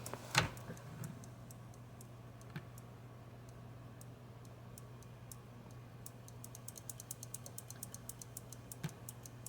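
Light clicks and ticks from washer door-latch parts being handled and checked: a sharp click about half a second in, then a fast run of faint ticks from about six seconds in, over a steady low hum.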